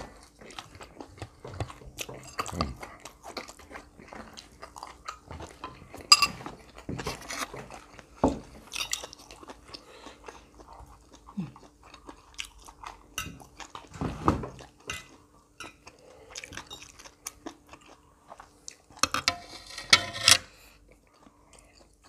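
Close-up chewing and crunching of crisp fresh raw vegetables and herbs eaten with grilled pork salad, with scattered clicks. The crunching is densest near the end.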